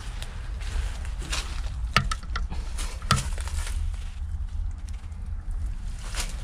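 Scattered sharp knocks and clicks, the two loudest about two and three seconds in, over a steady low rumble.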